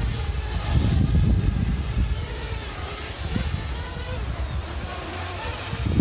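Parrot Bebop 2 quadcopter's propellers whining steadily in flight, while gusts of wind buffet the microphone with a low rumble.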